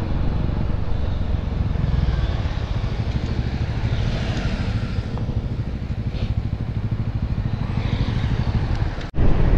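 TVS Apache motorcycle's single-cylinder engine running as the bike slows to a crawl, with other motorcycles passing close by. A brief dropout breaks the sound near the end.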